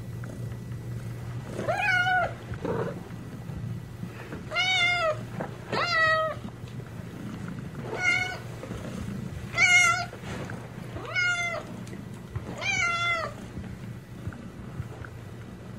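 A domestic cat meowing about seven times, each meow short and falling slightly in pitch at the end, over a steady low purr.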